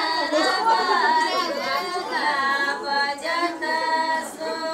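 A group of women singing together, with several voices overlapping on long held notes.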